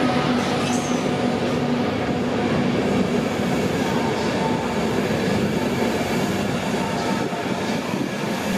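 Mark 4 coaches of an InterCity 225 train, hauled by Class 91 electric locomotive 91107, rolling past as the train arrives into the platform. Their wheels make a steady rumble on the rails, with faint wheel squeal.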